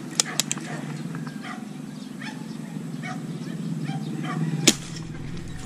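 A dog barking faintly several times over a steady low hum, with a few sharp clicks near the start and one louder click near the end.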